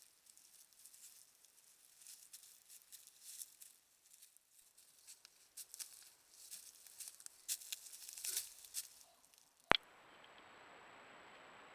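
Faint crackling and rustling of dry leaves and twigs as a North American porcupine, then a young moose, move about and forage close to a trail camera, busiest near the end. A sharp click follows, then a steady hiss with a thin high whine from the trail camera's night-mode recording.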